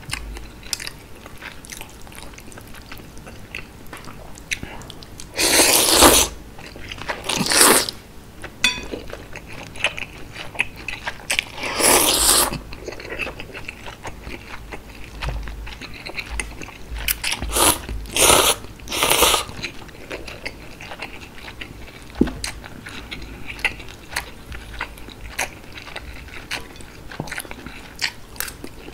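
Close-miked eating of chewy noodles in spicy broth: steady wet chewing throughout, broken by about six loud slurps, the last three coming in quick succession.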